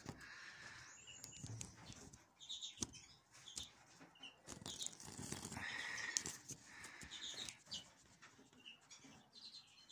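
Small finches in an aviary: faint wing flutters and clicks from birds moving about the perches, with a few short soft chirps.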